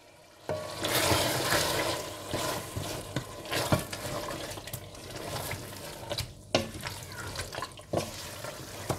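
Mutton chops, keema, yogurt and green chillies being stir-fried in a pan: sizzling, with a spoon scraping and knocking against the pan every so often. The sizzle starts about half a second in and is loudest over the next second or so.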